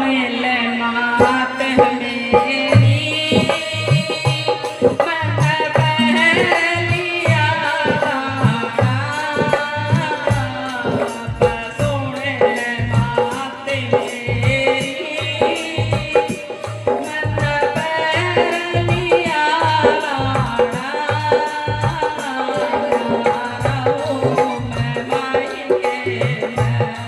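Indian devotional music: tabla beating a steady rhythm under a wavering, ornamented melody line.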